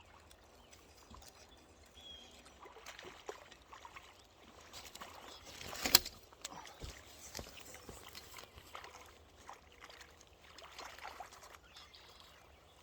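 Irregular splashing and sloshing of water with scattered small clicks and knocks, and one sharp knock about six seconds in: a hooked sucker being landed at the river's edge.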